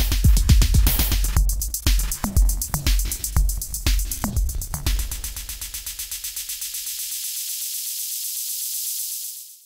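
Electronic drum-machine beat from the Ricepad sampler app on an iPod Touch 2G, heard straight from the device. About five seconds in, the bass and kicks drop away, leaving a fast, even stutter of high, hissy hits that cuts off suddenly near the end.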